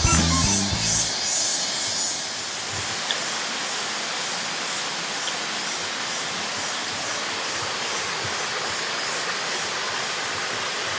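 Background music fades out in the first second or two, giving way to a steady rush of flowing stream water.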